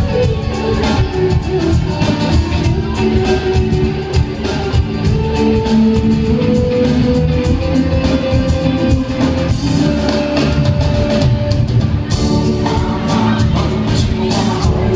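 Live rock band playing: drum kit keeping a steady beat under guitars playing held, sliding melody notes.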